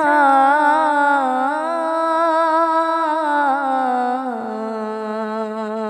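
A solo voice, unaccompanied, holds one long sung note of a Sufi kalam, wavering slightly in pitch. About four seconds in it steps down to a lower note and holds it steadily.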